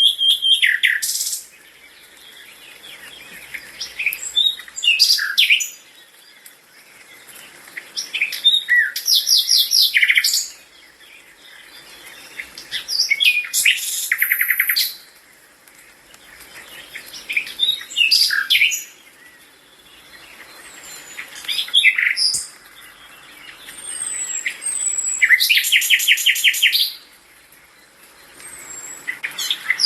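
A songbird singing, repeating a phrase about every four seconds: a few short whistled notes followed by a fast trill.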